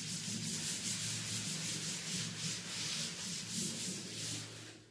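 Chalkboard being wiped clean with a duster in repeated back-and-forth strokes, a dry rubbing hiss that stops just before the end.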